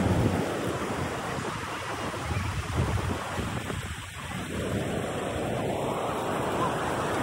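Surf washing in and out along the shoreline, a steady rush that ebbs about four seconds in and then swells again, with wind buffeting the microphone.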